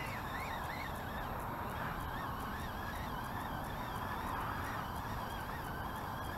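Geese honking, a continuous chorus of calls that rise and fall a few times a second.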